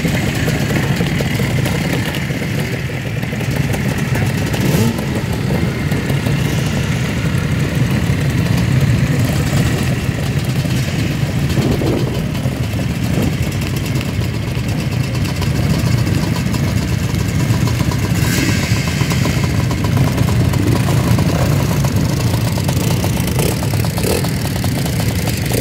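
A group of vintage enduro dirt bikes running together, idling steadily with engines revving up now and then.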